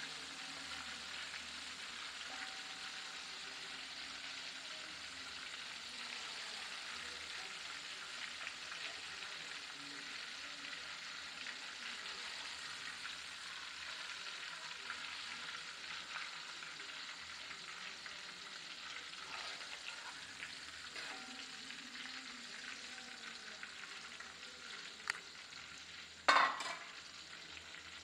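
Flour-coated chicken pieces deep-frying in hot oil: a steady sizzle with occasional faint clicks. A loud sharp knock sounds near the end.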